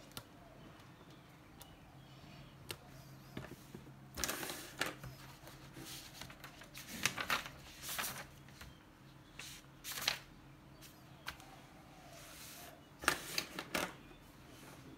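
Notebook paper pages rustling as they are turned and smoothed by hand, in about four short bursts, with a few small taps of things on a desk.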